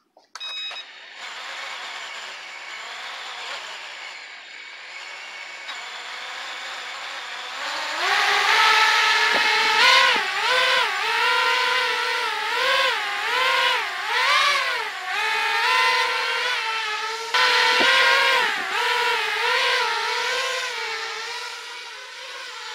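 FPV quadcopter's brushless motors and propellers whining in flight, the pitch rising and falling as the throttle changes. The whine is much louder and swings in pitch more from about eight seconds in.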